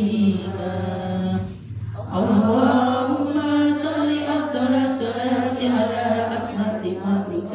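A woman chanting Arabic Islamic prayer recitation into a microphone, her voice carried through a loudspeaker, in long held melodic lines with a brief pause for breath about a second and a half in.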